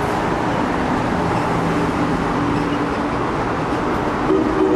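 An Amtrak Acela Express electric trainset passing close by at speed: a steady rush of steel wheels on rail and moving air.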